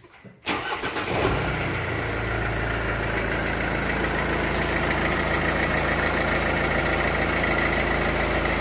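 Mercedes OM651 four-cylinder diesel engine cranking and catching about a second in, then settling into a steady idle, its timing chain tensioner freshly replaced to cure a rattling chain.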